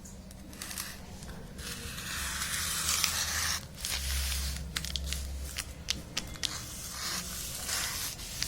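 Packaging of a laptop keyboard cover being torn and crinkled open by hand: a longer rip about two seconds in, then a run of crackles and rustles.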